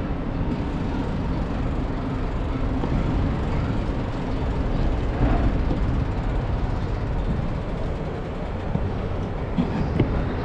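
Steady rumble of city vehicle traffic, with a couple of brief clicks near the end.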